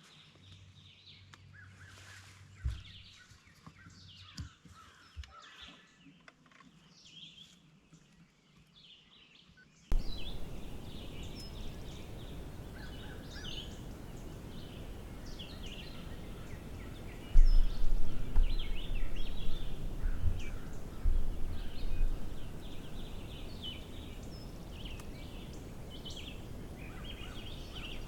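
Woodland songbirds chirping and singing, many short calls. About a third of the way in the sound changes abruptly to a noisier recording with a steady hiss under the birdsong, and loud low rumbling thumps come for a few seconds near the middle.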